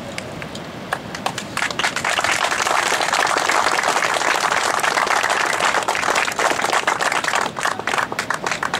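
A small crowd applauding. Scattered claps from about a second in build quickly into steady applause, which thins out to a few separate claps near the end.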